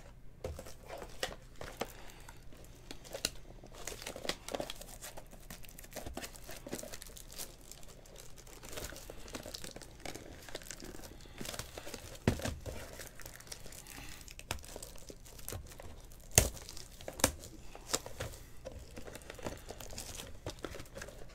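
Plastic wrapping and a trading-card pack crinkling and tearing as they are handled and opened, with scattered clicks and two sharp knocks, the loudest near the middle and about three quarters of the way through.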